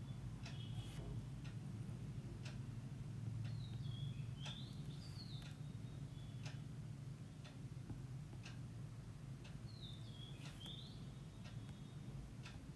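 A bird calling twice, short chirping phrases that glide up and down, the first about four seconds in and the second about ten seconds in. Scattered faint clicks and a low steady hum sit underneath.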